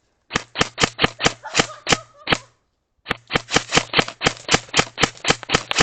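Airsoft gun firing two quick strings of sharp shots, about five a second, with a short pause between them.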